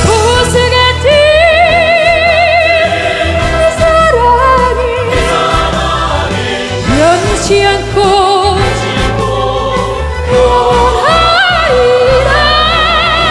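Classical operatic singing with wide vibrato over a recorded accompaniment with a steady low bass; about seven seconds in a second, lower voice slides up and sings alongside the first.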